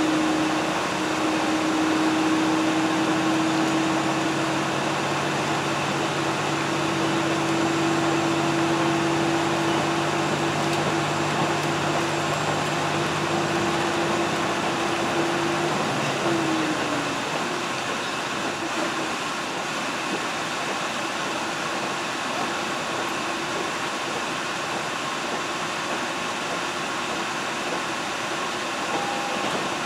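Diesel train running, heard from inside the car: a steady rolling rumble with an engine hum that drops in pitch and fades out a little past halfway, leaving the rumble slightly quieter.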